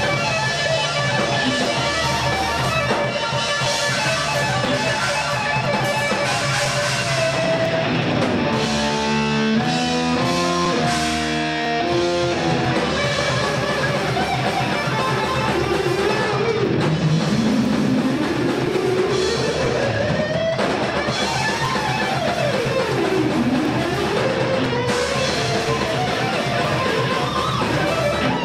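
Thrash metal band playing live on distorted electric guitars, bass and drum kit. About eight seconds in comes a short break of quick stepped guitar notes. From about sixteen seconds on, a guitar lead slides up and down in long pitch sweeps.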